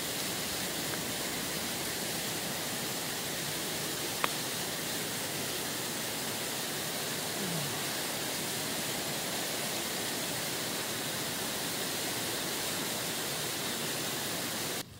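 Steady rushing of river water, an even continuous noise that cuts off abruptly near the end. A single faint click about four seconds in.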